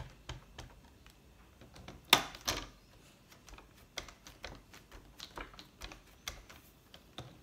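Light plastic clicks and taps as an ink pad is dabbed repeatedly against a rubber stamp on a Stamparatus stamping platform to re-ink it. Two louder knocks come about two seconds in.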